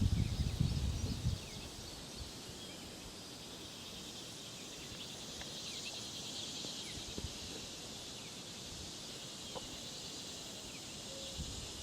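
Outdoor ambience: a steady high insect hiss with scattered small bird chirps, and some low wind rumble on the microphone in the first second or so.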